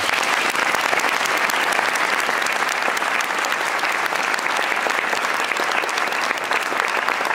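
An audience applauding: many hands clapping together in a dense, steady, even wash of claps that holds at one level throughout.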